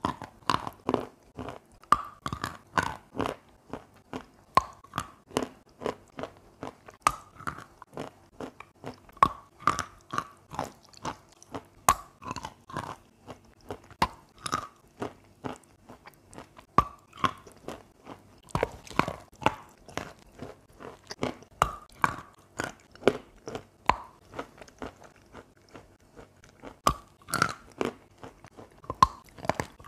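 Chalk coated in paste being bitten and chewed: an irregular run of sharp crunches, about two or three a second, as the chalk breaks up between the teeth.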